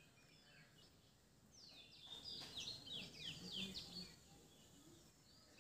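Faint bird chirps: a quick series of short, high, falling notes between about one and a half and four seconds in, over near silence.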